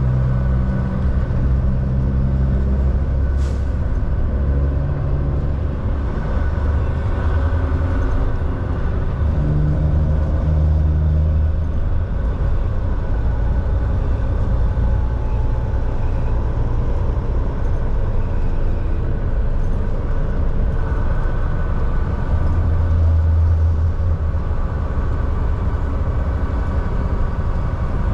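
Volvo VNL 760 semi truck driving at a steady pace: a steady low engine drone and road rumble, with one brief click about three seconds in.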